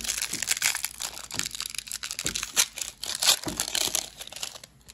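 Foil wrapper of a Pokémon booster pack crinkling and tearing as the pack is opened by hand, a dense run of sharp crackles that dies down near the end.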